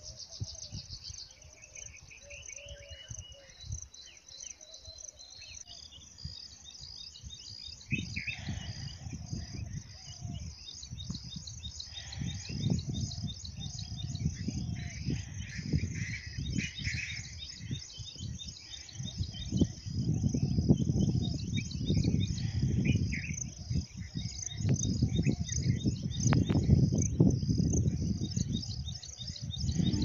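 Birds chirping over a steady, rapid, high-pitched pulsing of insects. A low rumbling noise comes and goes, heavier and louder in the second half.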